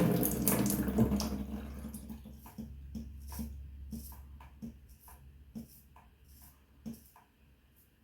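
Running water from a sink tap dying away over the first couple of seconds, followed by a string of short, faint ticks roughly every half second to second.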